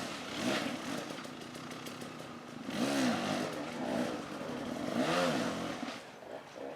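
Dirt bike engines rising and falling in pitch as riders work the throttle or pass, with louder swells about half a second, three seconds and five seconds in.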